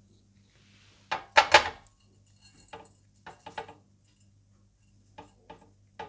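A mesh strainer knocked and tapped against a ceramic dish while fried, minced caralluma is tipped out of it: a cluster of loud clatters about a second in, then lighter single taps spaced out over the next few seconds.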